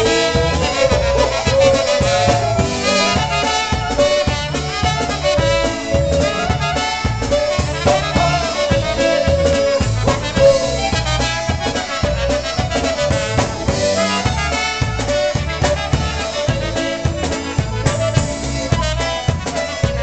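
Live polka band playing an instrumental break: a clarinet carries the melody over brass and a drum kit keeping a steady oom-pah beat.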